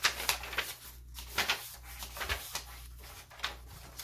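Paper pages of a handmade journal being turned by hand: several short rustles and flaps of the paper as the pages move.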